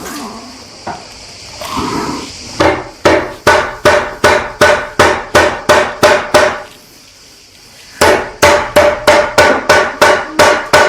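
Hammer tapping a nailed plastic glide onto a chair's foot: two quick runs of about ten blows each, roughly two to three a second, with a pause between, each blow ringing briefly.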